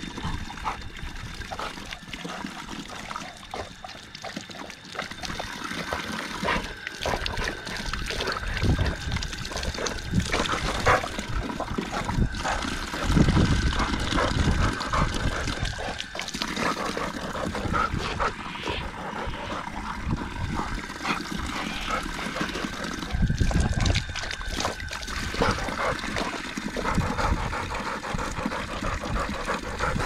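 Water trickling and splashing from a self-closing tap while a dog laps at it, with irregular small clicks and splashes.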